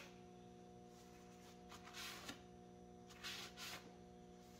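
Near silence: a few faint swipes of a paper shop towel wiped across a bare engine block, over a steady faint hum.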